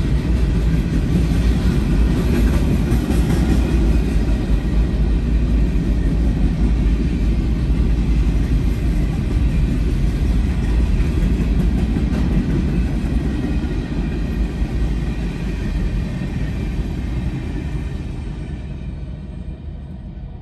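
Freight train cars rolling past close by: a steady low rumble of steel wheels on rail that fades away over the last several seconds as the end of the train passes and moves off.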